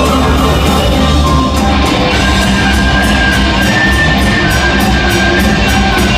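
Live folk metal band playing loud, with guitars and a drum kit; from about two seconds in the cymbals keep a steady beat, and a held high note runs over the top.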